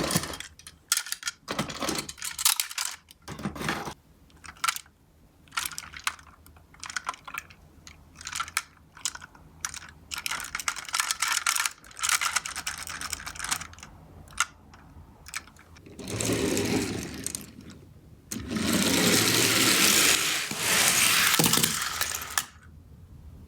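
Die-cast toy minicars clattering and rolling down a slope: many small clicks and knocks, then a longer, louder rattle of many cars running together near the end.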